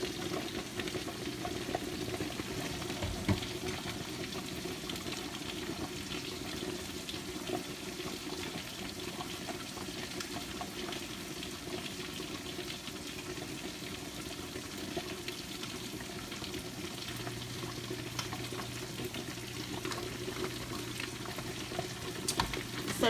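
A silicone spatula stirring thick, creamy grits in a saucepan, against a steady sizzle of cooking on the stove.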